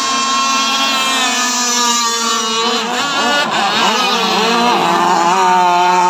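Several radio-controlled racing powerboats running at high revs, their engine notes overlapping and rising and falling in pitch as they race and turn.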